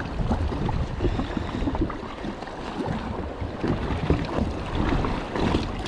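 Wind buffeting the microphone over choppy sea water lapping against a jet ski.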